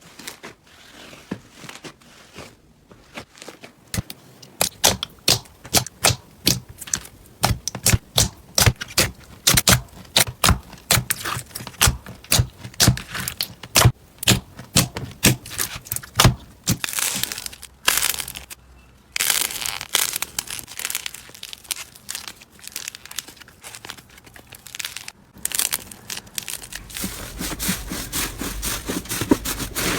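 Slime being played with by hand, with many quick sharp clicks and pops, then a denser crackling sound from about 17 seconds in.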